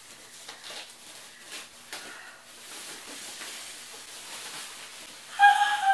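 Plastic wrapping rustling and crinkling as it is handled and pulled off a boxed cutting machine. Near the end comes a short, high-pitched voice sound.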